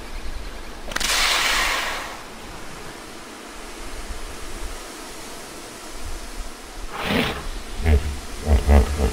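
Pause between common hippopotamus calls: a short blast of hiss about a second in, then steady background noise. Near the end, the low grunting pulses of the next hippo call begin.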